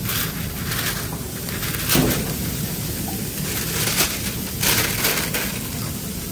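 Brown paper takeaway bag crinkling and rustling in several short bursts as it is handled and folded shut, over a steady low hum.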